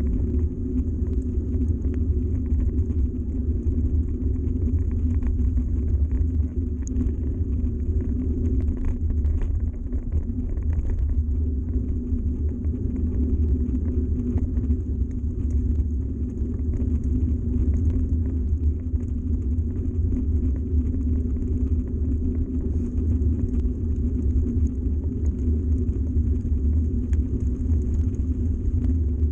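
Mountain bike riding along a gravel track: a steady low rumble of tyres rolling on gravel and wind on the microphone, with faint ticks and rattles scattered through it.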